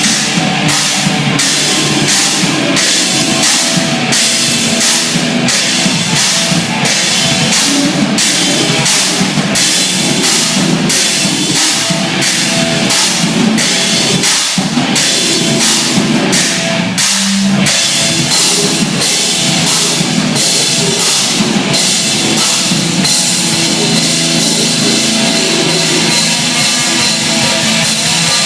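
Loud rock music with a drum kit keeping a steady, driving beat, its cymbal and snare strokes evenly spaced.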